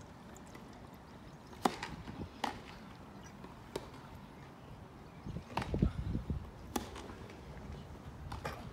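Tennis ball struck back and forth with racquets in a grass-court rally: a string of sharp pops about a second apart. Heavier low thumps of a player's footwork come a little past the middle.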